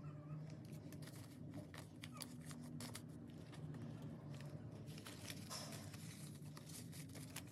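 US dollar bills being handled and counted by hand: faint, scattered rustles and flicks of paper money over a low, steady hum.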